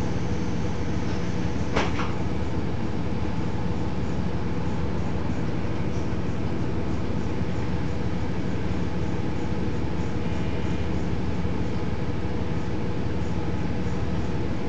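Cabin sound of a KiHa 40 series diesel railcar: its diesel engine running steadily with a constant low hum, and a single sharp clack about two seconds in.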